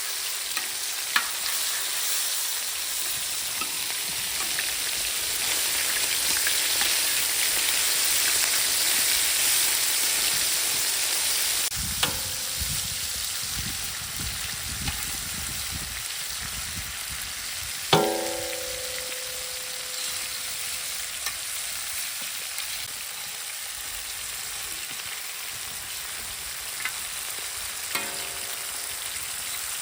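Chicken leg pieces sizzling steadily in oil on a tava, with a few sharp metal clinks against the pan. The loudest clink comes about two-thirds of the way in and rings briefly, with a smaller ringing clink near the end.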